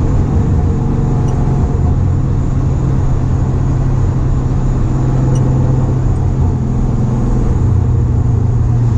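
Nissan 300ZX's V6 engine and road noise while driving at a steady speed, heard from inside the cabin: an even low drone with no change in pitch.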